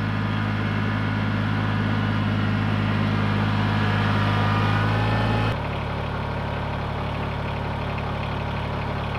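Kubota BX2380 compact tractor's three-cylinder diesel engine running as the tractor drives up. About five and a half seconds in it drops to a slightly quieter, steady idle.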